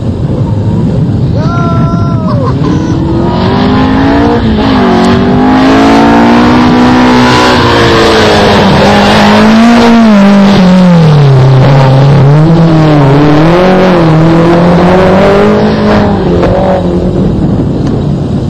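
Competition car's engine driven hard past the spectators. The engine note climbs in pitch, drops sharply through a gear change, then rises and falls as the driver works the throttle. It is loudest in the middle and fades near the end.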